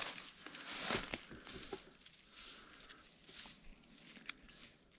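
Rustling and crackling of dry leaves and twigs in forest undergrowth, loudest in the first second or so with a sharp snap about a second in, then fainter scattered rustles.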